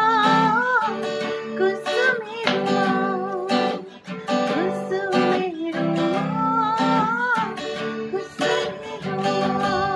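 Guitar playing a melody of bent, wavering notes over low sustained chords.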